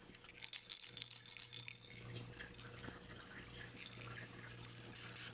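Light metallic jingling and clinking, busiest for about the first two seconds, then a few softer jingles.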